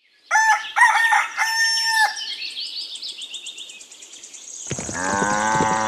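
A rooster crowing once, a cock-a-doodle-doo ending on a long held note, followed by small birds chirping. About a second before the end, a lower, drawn-out animal call starts.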